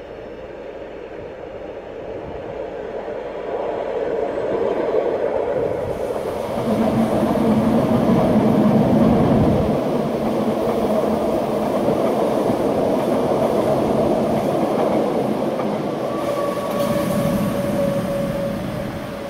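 Rhaetian Railway train running on the rails, its rumble growing louder about a third of the way in. Near the end a steady high squeal joins it, typical of wheels on a curve.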